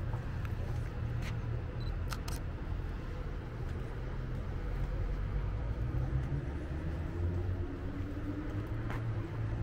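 City street ambience: a steady low hum of distant traffic, with a few sharp clicks about one and two seconds in and again near the end.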